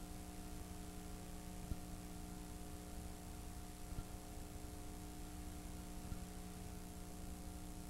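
Steady electrical mains hum with several tones, under an even hiss, with a few faint clicks about two, four and six seconds in.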